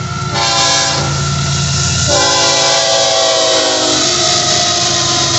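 Freight locomotive's air horn sounding a sustained chord that shifts to a new set of notes about two seconds in and mostly stops near four seconds, over the loud rumble of the passing Florida East Coast train.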